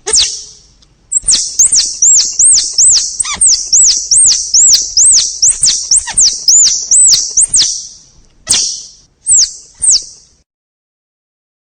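Squirrel calling: a rapid run of short, high chirps, about three a second, that breaks into a few separate chirps near the end.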